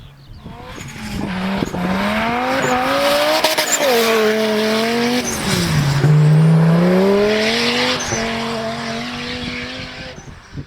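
Straight-piped Audi 2.2-litre turbo five-cylinder (AAN) engine of a racing buggy accelerating hard, its pitch climbing and dropping back with each gearchange. It grows louder from about a second in and fades away near the end, as the buggy passes and pulls away.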